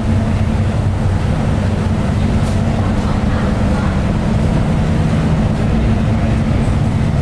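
A ferry's engines running with a steady low hum and drone, heard inside the passenger cabin while under way.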